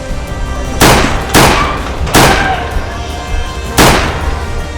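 Four loud, sharp gunshot-like blasts, each with a short ringing tail, over background music.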